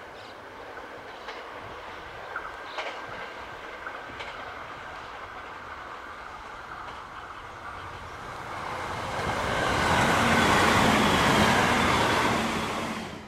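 A JR West 521 series four-car electric train approaches and passes at speed. It grows steadily louder from about eight seconds in to a loud pass-by with clickety-clack wheel clatter, then cuts off suddenly.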